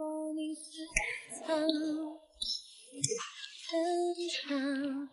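Background music with a woman singing long, wavering notes with vibrato. Two sharp knocks come through, about a second in and again about three seconds in.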